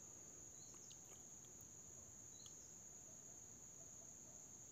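Near silence: faint background with a steady high-pitched hiss and a few faint short chirps.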